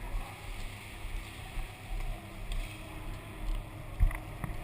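Rumble and handling noise on a body-worn camera microphone as an airsoft player moves off, with soft low thumps about twice a second, then a sharp click about four seconds in and a lighter one just after.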